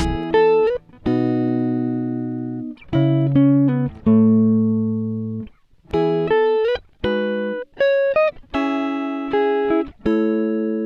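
Background music: a plucked-string melody of single notes, each ringing out and fading before the next.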